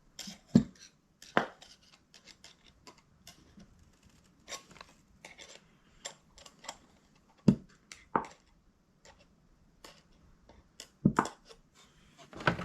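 Scattered light clicks and knocks of VW rocker arms and small engine parts being handled and set down on a workbench while they are oiled, with a few sharper knocks spread through.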